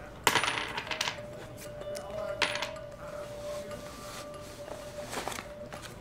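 Metal jewelry dropped onto a desk: a sharp clinking drop with a brief metallic ring about a quarter second in, a second clink about two and a half seconds in, and lighter clicks near the end.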